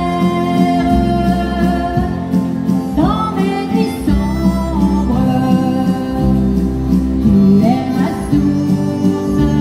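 Live country music: a woman singing the melody over strummed acoustic guitar and a steady bass line.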